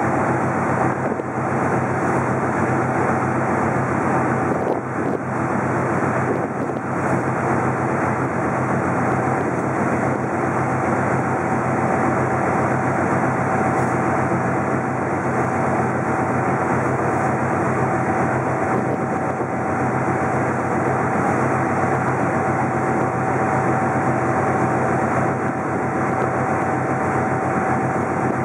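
Steady drone of a car ferry's engines under way, with a constant low hum and a thin steady whine above it, mixed with wind on the microphone.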